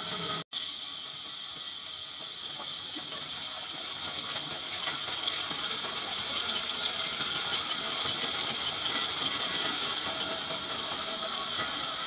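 Horizontal band sawmill blade cutting through a large hardwood log: a steady hiss. A split-second break of silence comes about half a second in.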